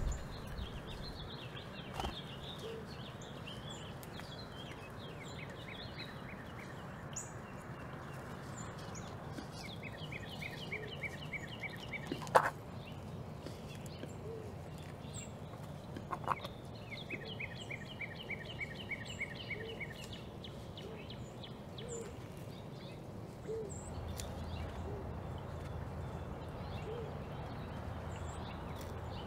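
Backyard songbirds, one bird repeating a quick trill of notes several times, with scattered high chirps from others, over steady outdoor background noise. A sharp click sounds about halfway through, the loudest thing here, with another a few seconds later.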